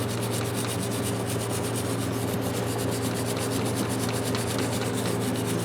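Small drill-mounted wire brush spinning against a rusty adjustable wrench, a steady fast scrubbing over the drill's hum as it scours rust and scale from the jaw.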